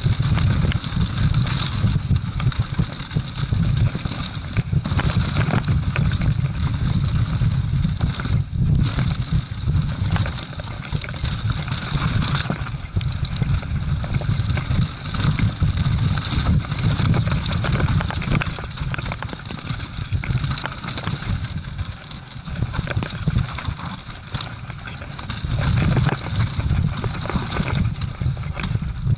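Mountain bike ridden fast down a dry, rough dirt trail: wind buffeting the camera's microphone, tyres crunching over dirt and dry leaves, and the bike knocking and rattling over bumps.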